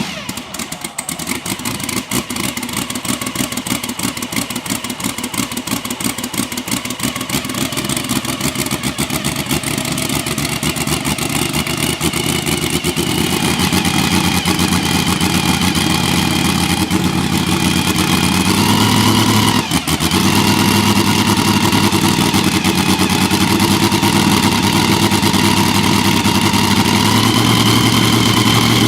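Porsche 935 K3's turbocharged flat-six racing engine running, growing louder over the first dozen seconds and rising in pitch in steps, with a brief break about twenty seconds in before it runs on steady and high.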